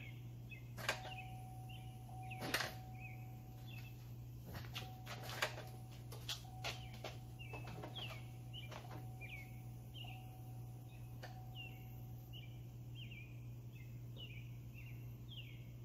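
Scattered faint clicks as the ignition is cycled to prime the fuel system before a first start, over a low steady hum. Small birds chirp over and over.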